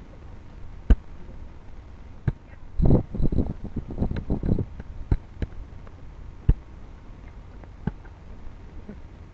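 Punches and kicks slapping into hand-held focus mitts: single sharp smacks spaced a second or more apart, with a quick flurry of strikes in the middle.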